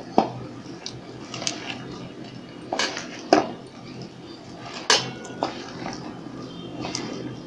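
Cauliflower florets being mixed by hand in thick batter in a steel bowl: a wet stirring noise broken by several sharp clinks against the bowl at irregular intervals, one about five seconds in ringing briefly.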